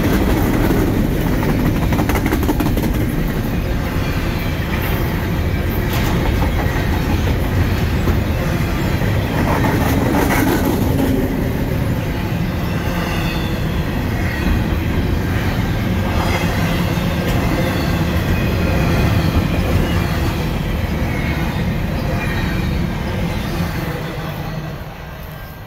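Double-stack container well cars of a freight train rolling past close by: steel wheels clacking over the rail joints over a steady rumble, with some faint wheel squeal. The sound fades near the end as the last car goes by.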